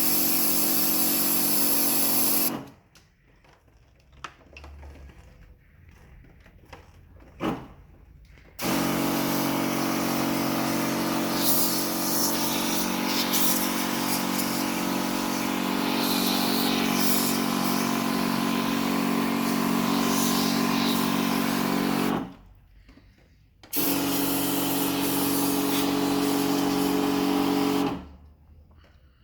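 A small electric motor-driven cleaning machine runs with a steady hum and a hiss, stopping after about two seconds, starting again some six seconds later, pausing briefly once more, and cutting out near the end.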